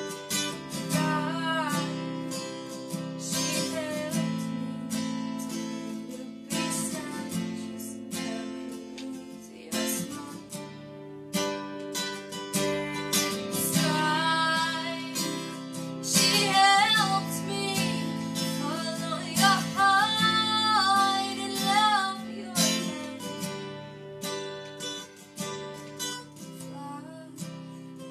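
A woman singing and strumming an acoustic guitar. The guitar runs on steadily while the voice comes in phrases, strongest in the middle stretch.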